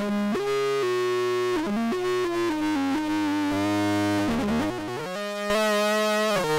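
Synthesizer notes in a stepping sequence, amplified through the Orobas's vacuum-tube stages. About five and a half seconds in, the tone turns brighter, grittier and a little louder as a control on the tube amplifier is turned up.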